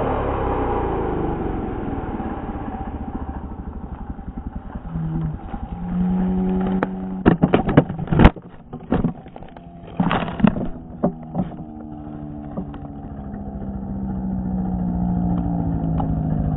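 Chainsaw engine dropping from high revs right at the start, then running lower with its pitch wandering and building again toward the end. A run of sharp knocks and clatter comes about seven to eleven seconds in.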